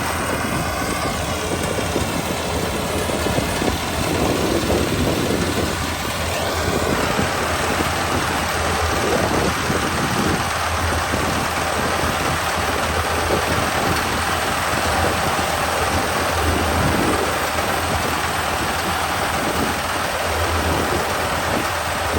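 Kubota ER572 combine harvester running steadily under working load, a constant low diesel engine hum with the broad rushing noise of the harvesting machinery over it.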